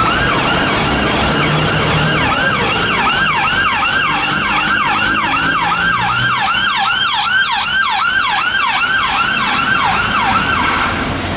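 Ambulance siren sounding a fast yelp, about three sweeps a second, with a second higher sweeping tone joining about two seconds in. It stops shortly before the end, leaving a low traffic rumble.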